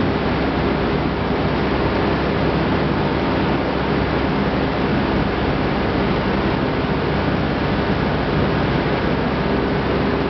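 Corn milling machinery running steadily: an even mechanical noise with a few faint held tones underneath.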